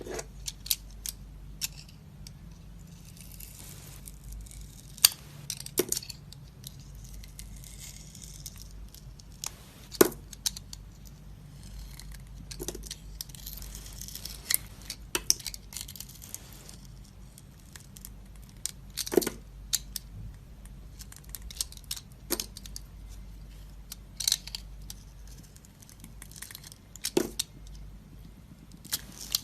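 A knife cutting and scraping dry soap: sharp, separate cracks as the blade snaps through the bar, every second or few seconds, with two stretches of soft scraping.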